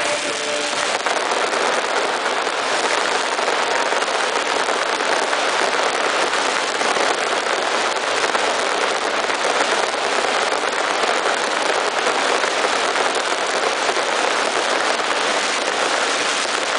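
Pyrotechnic ground fountains (gerbes) firing, a loud, continuous rushing hiss that stays steady throughout.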